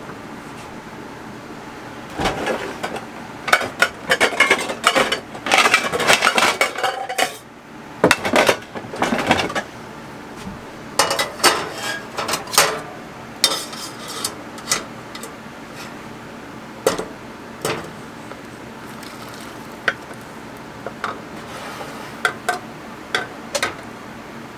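Pots and a spoon clattering on a stovetop: irregular knocks, clinks and scrapes, busiest in the first half, then thinning to scattered taps. It is the sound of hot candy syrup being moved into a different pot.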